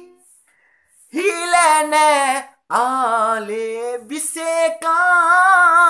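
A man singing a Sinhala song unaccompanied in a high voice. After a second's pause he sings three long phrases with vibrato, the last one held.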